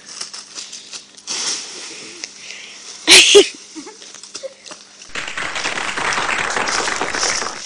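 A child jumping into a pile of dry fallen leaves: leaves rustling and crunching, with a short loud yelp about three seconds in. In the last two and a half seconds there is a steady dense crackling noise.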